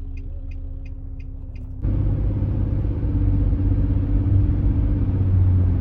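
Low rumble of a car driving, starting suddenly about two seconds in. Before it, quick regular ticking over a faint steady hum.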